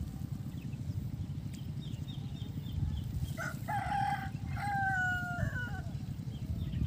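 A rooster crowing once, a long multi-note crow starting about halfway through, over a steady low rumble.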